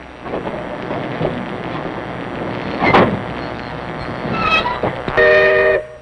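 Narrow-gauge steam locomotive whistle giving one short blast of several tones near the end, cut off suddenly, over rough, noisy train sound with a sharp loud burst about halfway through.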